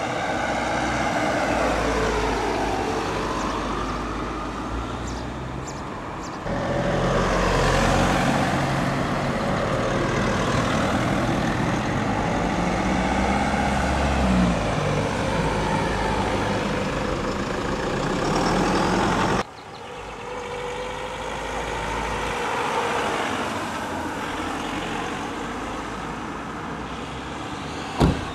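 Cars driving past one at a time, their engines rising and falling in pitch as they accelerate by. The sound changes abruptly twice between passes, and there is a short sharp knock near the end.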